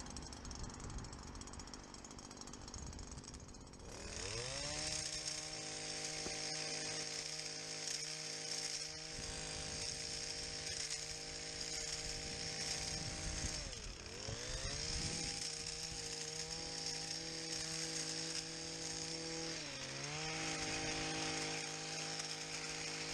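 Stihl Kombi petrol engine driving a long-reach hedge trimmer attachment. About four seconds in it revs up and runs at steady high speed while the blades cut across the top of the hedge. Its revs sag and recover about 14 seconds in, and dip again briefly near 20 seconds.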